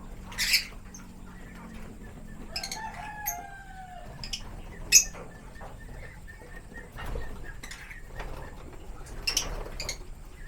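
African lovebirds giving short, sharp squawks every second or two. About three seconds in comes one longer call from another bird, falling in pitch over about a second and a half.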